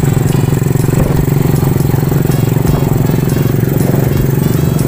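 Small motorcycle engine running steadily at cruising speed, heard from on the bike while riding.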